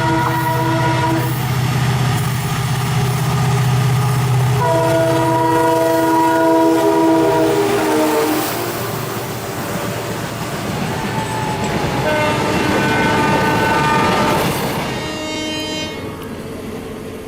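Indian Railways locomotive air horn sounding a multi-note chord in long blasts. The first cuts off about a second in, the next runs from about four and a half to eight seconds, and a third at a different, higher pitch comes from about twelve to fifteen seconds. Under the horns are a low engine hum and the rush and clatter of a passing train.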